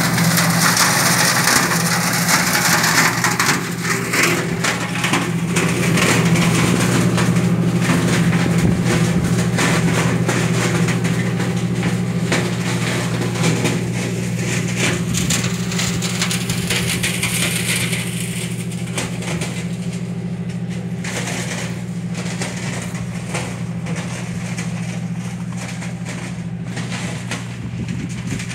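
Tractor engine running steadily under load, driving a Shaktiman side-discharge flail mower whose flails shred vine shoots and leaves with a dense crackling. The shredding noise is loudest at first and thins out in the second half, leaving the engine hum and scattered clicks.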